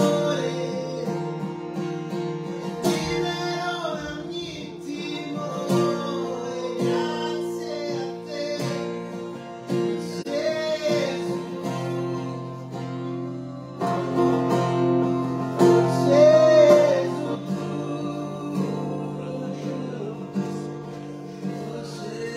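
A man singing a worship song in Italian to his own strummed acoustic guitar, amplified through a PA system.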